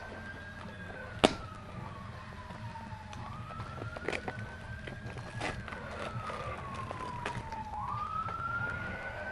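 Emergency-vehicle siren wailing, its pitch rising and falling slowly, about four to five seconds a cycle, over a low steady hum. Sharp clicks sound over it, the loudest a little over a second in.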